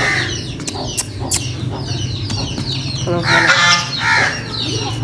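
Chickens clucking, louder about three seconds in, with many small birds chirping throughout.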